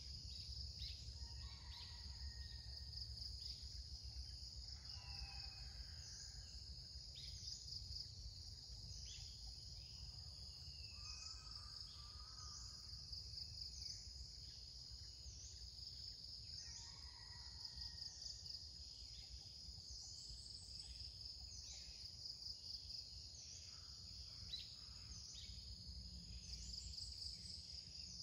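Insects droning steadily with a high, rapid pulsing, while a caged red-whiskered bulbul used as a decoy sings short phrases every few seconds.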